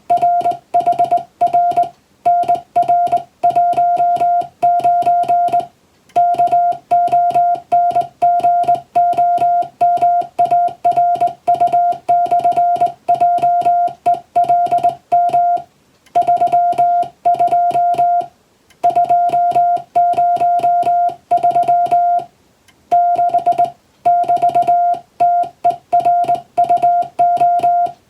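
Morse code practice in English text: a single steady beep keyed on and off in quick dots and dashes, with short pauses between groups.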